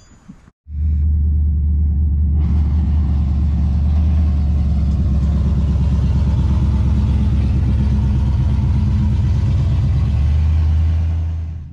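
Pickup truck engine running with a steady low drone, starting about a second in, as the truck pulls away. The sound holds at one level and fades out near the end.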